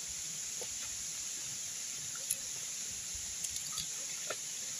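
Steady high-pitched drone of insects, with a few faint clicks and taps as sticks are handled in a stone fire ring.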